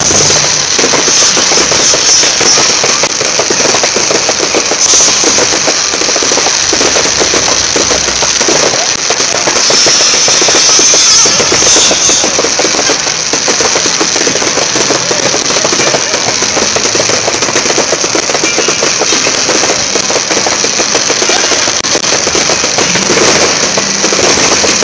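Fireworks going off in a dense, continuous rapid crackle of small bangs, loud throughout.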